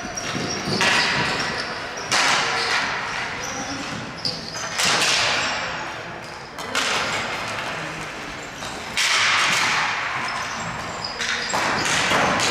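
Ball hockey play in an echoing hall: about six sudden knocks of ball and sticks against the floor and boards, one every two seconds or so, each ringing out in the hall's echo.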